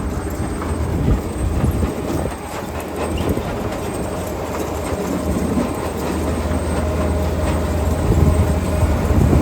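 Potato harvester at work lifting a crop: a steady low engine drone under a continuous rattling clatter, with scattered knocks, getting louder near the end.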